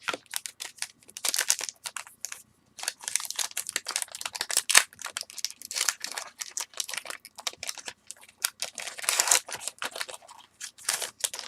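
A foil trading-card pack wrapper being torn open and crinkled as the cards are pulled out and handled, with many quick irregular crackles and rustles.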